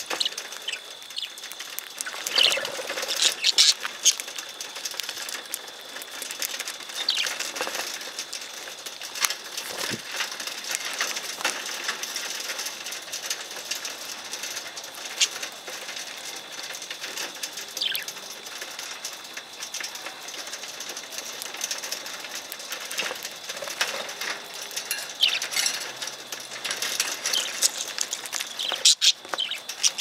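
Budgerigars chirping in short scattered calls, with wings flapping close by.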